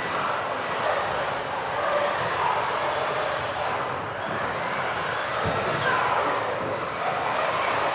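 Electric off-road RC buggies running a race: the whine of their motors rising and falling in pitch as they speed up and brake, over a steady noise of tyres on the floor, echoing in a large hall.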